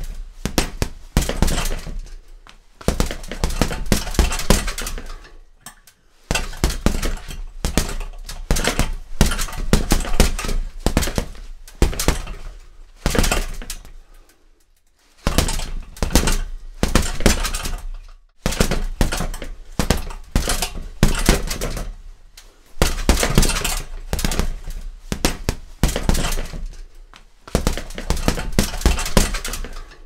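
Boxing gloves hitting a heavy bag in rapid combinations of punches, bursts of many hits a few seconds long separated by short pauses. The punches echo in the room.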